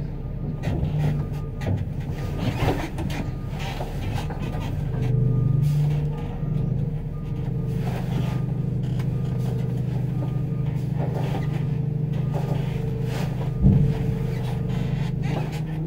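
Ladder fire truck's engine running under a backup alarm beeping about twice a second as the truck reverses, heard from inside the rear tiller cab. The engine note goes up briefly about five seconds in, and a brief loud knock comes near the end.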